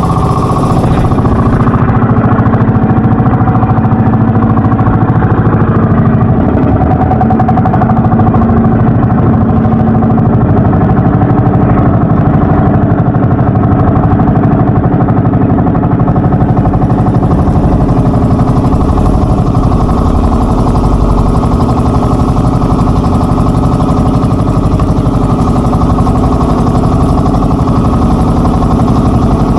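Twin engines of a fiberglass outrigger boat running steadily at cruising speed while the boat is under way.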